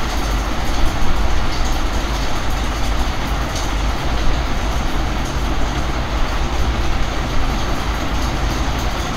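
Steady rumbling background noise, even and unbroken, with a few faint clicks.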